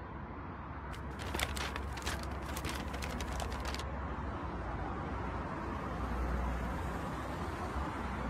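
A newspaper rustling and crackling as it is handled, starting about a second in and stopping near the four-second mark, over a steady low rumble.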